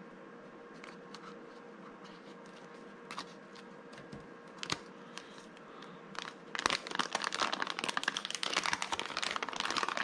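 Packaging crinkling and rustling as a Flipper Zero silicone case is unwrapped: a few scattered clicks and handling sounds at first, then continuous crinkling from about two thirds of the way in.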